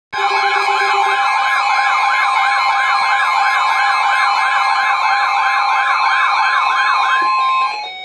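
A row of weather radios sounding their alert alarms together for a severe thunderstorm warning: a fast rising-and-falling siren warble, about three sweeps a second, over a steady high alarm tone. The alarms stop shortly before the end.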